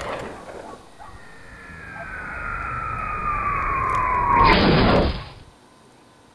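Science-fiction sound effect for a flying saucer: a falling whine that grows louder over about three seconds, ends in a short rushing burst and then cuts off. At the start, the rumbling tail of an earlier boom dies away.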